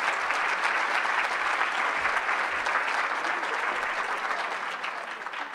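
Audience applauding: dense, steady clapping that starts to thin out near the end.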